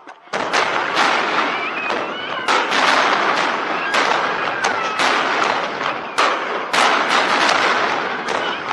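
Aerial fireworks shells bursting in rapid succession, a sharp bang every half-second to second over continuous crackling and echo. The run thins out near the end.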